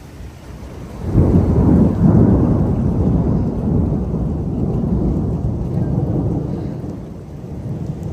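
Thunder during a heavy downpour: a sudden deep rumble about a second in that slowly fades over several seconds, over the steady hiss of rain.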